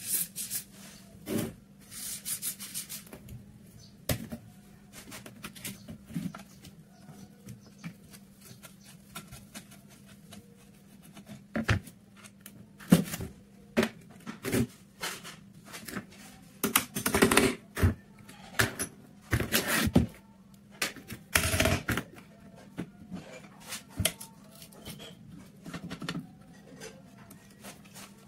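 Irregular clicks, knocks and scrapes of rusted rifle parts and hand tools on a workbench as a corroded M48 Mauser rifle is taken apart. A short hiss of spray lubricant comes about two seconds in, and a low steady hum runs underneath.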